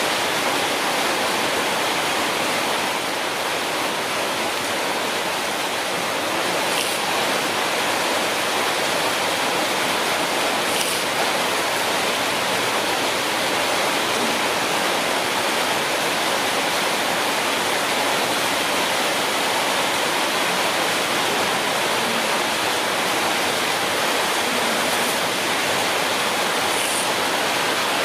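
Steady, even rushing hiss that does not change in level, with a few faint brief high ticks over it.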